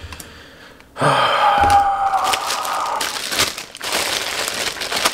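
Packaging crinkling and rustling as a parcel is rummaged through, starting about a second in and going on as a dense run of crackles.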